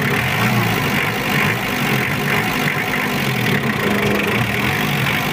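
Mitsubishi 4D56 2.5-litre four-cylinder turbodiesel idling steadily, its injection pump freshly set and the engine sounding dry.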